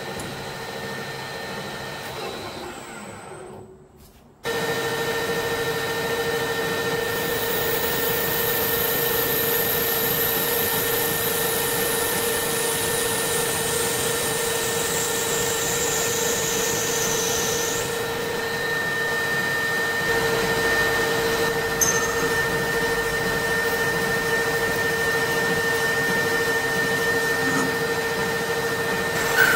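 Metal lathe running and turning a brass washer, with a steady machine whine from the drive. The sound fades almost to silence about four seconds in, then the whine starts abruptly and holds steady; a faint high whistle slowly falls in pitch through the middle.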